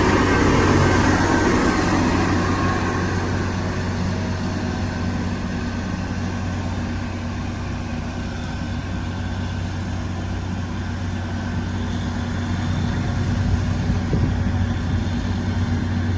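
Diesel engine of an HD850 motor grader running steadily with a low hum, loudest in the first couple of seconds, easing off, then building slightly again near the end.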